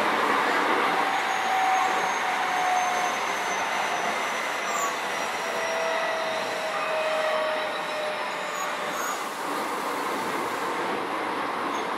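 Keio 7000 series electric train running, heard from inside the passenger car: continuous rolling and wheel-on-rail noise with faint, drawn-out squealing tones.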